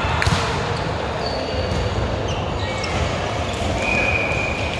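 Indoor volleyball play: a sharp hit of the ball about a third of a second in, and short high squeaks of sneakers on the court floor over a steady hall murmur.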